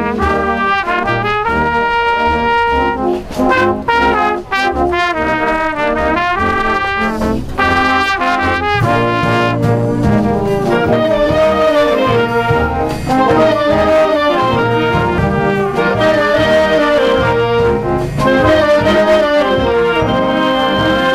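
Children's symphonic band playing, brass to the fore, with several notes at once moving through a melody. Deeper parts fill out the sound from about nine seconds in.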